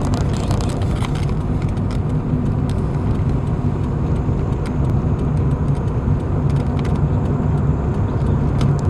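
Steady low engine and road noise heard from inside a moving car's cabin, with scattered light clicks.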